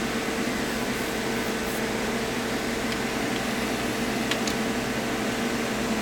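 Steady whir and hum of a running desktop computer's cooling fans, with a few faint clicks.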